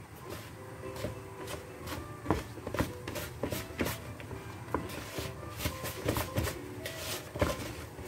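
Hands mixing and kneading a sticky suet-pastry dough in a mixing bowl, working in extra flour to firm up dough that is too wet: irregular rubbing with sharp knocks of fingers against the bowl.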